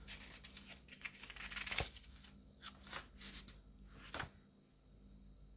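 Faint rustling of a paper booklet's pages as they are handled and turned, with a few quick page flicks, the sharpest a little after four seconds in.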